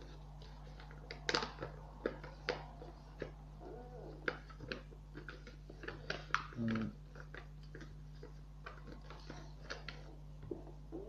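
Sheet of paper being folded and creased by hand: irregular crinkles, rustles and small taps over a steady low hum, with a brief low pitched sound about six and a half seconds in.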